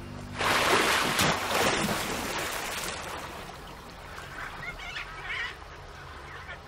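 Heavy water splashing as a jaguar lunges and thrashes with a caiman in shallow river water. It starts loud about half a second in and dies away over the next few seconds.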